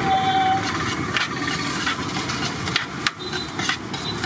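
Busy roadside traffic noise with irregular sharp clinks and knocks of a serving ladle against a large aluminium biryani pot and its lid, and a short beep-like tone near the start.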